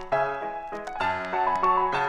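Piano music playing a quick run of notes, several a second.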